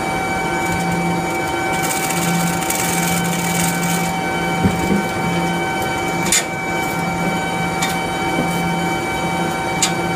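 Steady machinery hum with several constant whining tones and a low hum that comes and goes, broken by a few sharp clicks, the loudest about six seconds in.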